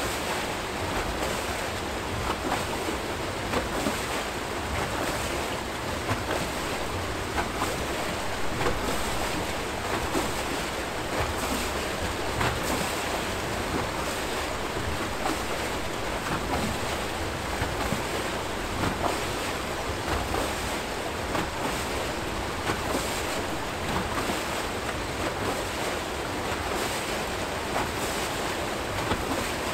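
Archimedes screw hydro turbine turning, its flights carrying water down and releasing it in a steady churning rush, with small splashes and slaps throughout.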